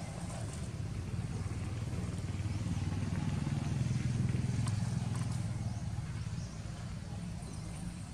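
A motor vehicle's engine running with a low, steady hum that grows louder about three seconds in and eases off again after about six seconds.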